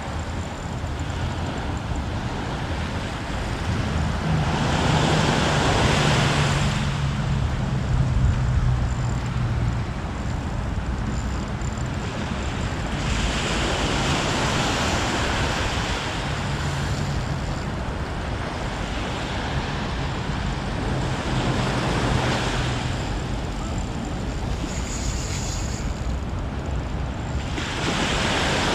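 Sea waves breaking and washing against the shore, swelling up about every eight or nine seconds, with wind on the microphone. A low hum sits underneath for a few seconds in the first third.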